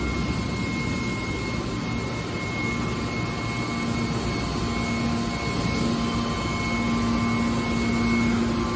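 Hydraulic scrap metal baler running: a steady machine drone with a high whine and a low hum that grows stronger about four seconds in.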